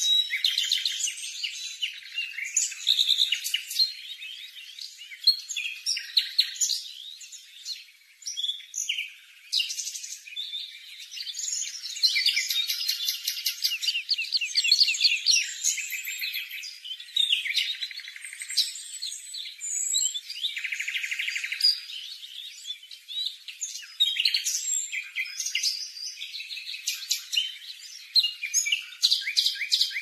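Cuckoo fledgling begging: high-pitched chirping calls, repeated in fast trains of notes with short breaks, as the small host bird feeds it.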